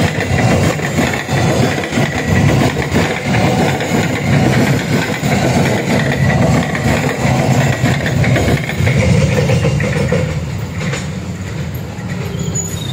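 Freight train of flat wagons rolling past on the rails: a steady dense rumble and clatter of steel wheels, easing off about ten seconds in as the last wagon goes by.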